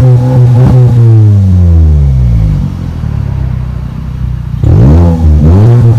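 Volkswagen Golf GTI's turbocharged four-cylinder engine revving: held steady, then the revs fall away to a lower, quieter note, then a quick rev blip about three-quarters of the way through before it settles back to a steady held rev.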